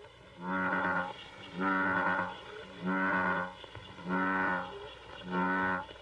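A bullfrog croaking five times in an even series, each croak a low, drawn-out note about half a second long, a little over a second apart.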